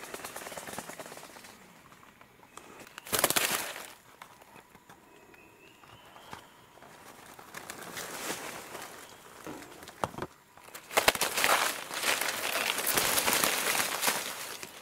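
Dry leaf litter and twigs rustling and crackling as they are disturbed, in a short loud burst about three seconds in and a longer, louder stretch near the end, with a few sharp snaps of twigs.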